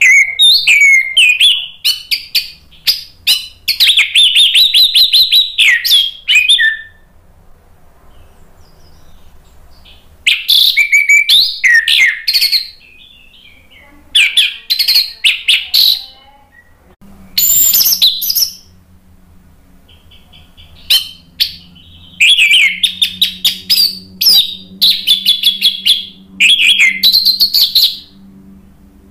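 Orange-headed thrush (anis merah) singing loudly in bouts of rapid, varied phrases with quick repeated sharp notes, pausing a second or few between bouts.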